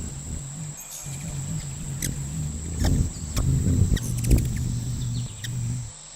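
Hummingbird wings humming with a fluttering low buzz that shifts in pitch, with a few short high chirps.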